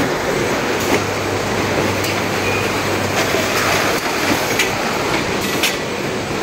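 Steady running noise of an automated robotic packaging line, a robot arm and conveyors at work, with a low hum and a few sharp clicks.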